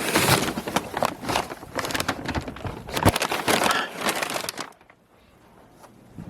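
Footsteps crunching through snow, an irregular crackling with many small clicks, stopping about four and a half seconds in.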